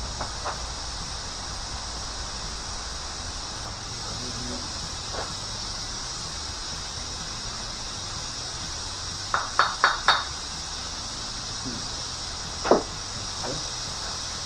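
Light metal clicks and clinks of engine main bearing caps and bearing shells being handled. There is a quick cluster of four about nine seconds in and one louder clink near the end, over a steady high-pitched hiss.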